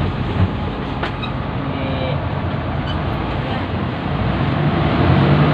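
Intercity bus running on the road: steady engine and road noise as heard aboard, with a brief knock about half a second in.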